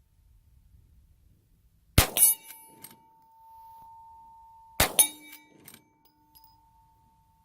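Two shots from a Winchester Model 1873 lever-action rifle in .45 Colt, about three seconds apart. Each shot is followed a fraction of a second later by a loud metallic clang that rings on with a steady tone, the sound of the bullet striking a steel target.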